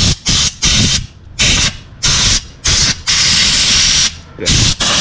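Short bursts of pressurised spray hissing, about ten in quick succession with one longer burst near the middle, clearing liquid out of the blind bolt holes for the water pump so that trapped coolant cannot crack the block when the bolts are tightened.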